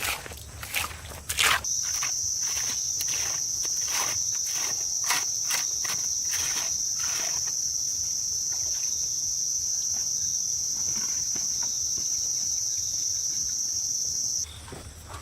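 A steady, high-pitched insect drone that starts suddenly a second or two in and cuts off suddenly near the end. Sharp clicks or knocks come at an uneven pace through the first half.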